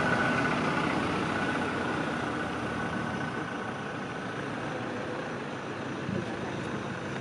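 Vehicle engine idling steadily, with a faint high steady tone fading out over the first couple of seconds.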